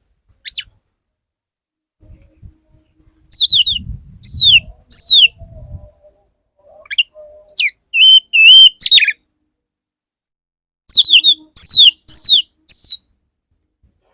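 Male oriental magpie-robin singing its courtship song: three bursts of clear, downward-sliding whistles with a few warbled notes between them.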